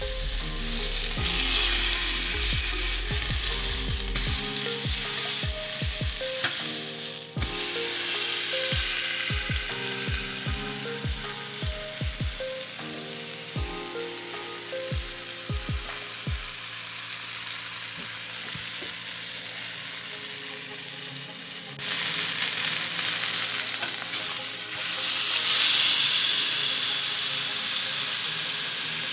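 Beef tenderloin searing in hot olive oil in a stainless steel frying pan: a steady, loud sizzle that grows louder about three-quarters of the way through. Quieter low musical notes sit under it during the first half.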